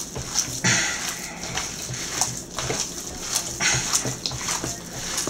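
Hands squeezing and kneading raw ground-beef meatloaf mix in a large stainless-steel bowl: irregular wet squelching and squishing, a few squeezes a second.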